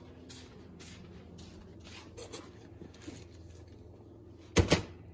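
Plastic food-storage containers being handled and shifted on a granite countertop: light clicks and rustles, then a louder double clatter near the end as a container is pulled out and set down.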